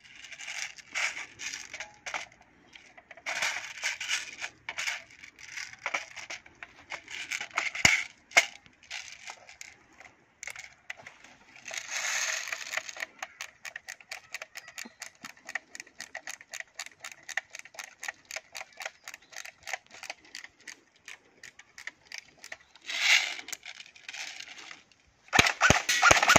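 Plastic Umarex H&K UMP airsoft replica being handled: bursts of rattling and clattering, then a long run of quick, even ratchet clicks, several a second. Near the end come the first few sharp shots.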